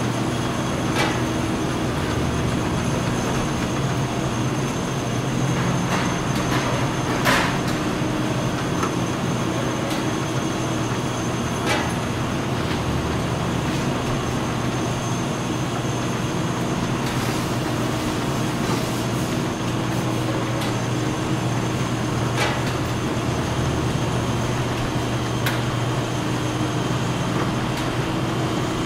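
Automatic bottle-filling line running, a steady mechanical hum with occasional sharp clinks at irregular intervals.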